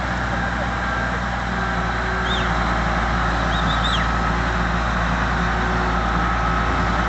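A heavy vehicle's engine running steadily, with a few faint high chirps about two and a half and four seconds in.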